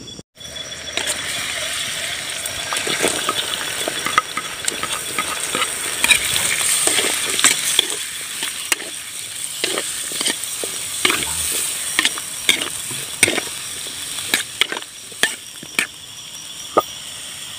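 Vegetables sizzling as they are stir-fried in a metal wok, a metal spatula scraping and clicking against the pan many times as it turns them.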